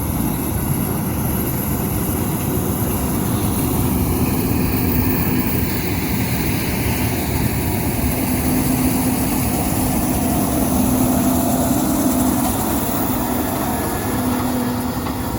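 Heavy farm machinery running steadily through the corn harvest: diesel engine rumble with a faint steady hum.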